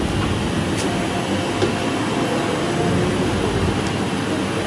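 Steady low rumble of vehicle engines and traffic, with a couple of light clicks.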